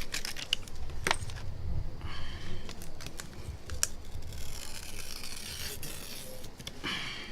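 A small blade scraping and plastic film crinkling as the polarizer is worked off a phone LCD, with several sharp light clicks.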